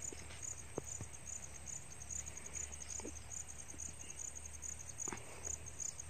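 Insects chirping in an even, high-pitched pulse repeated a few times a second, with a few faint knocks.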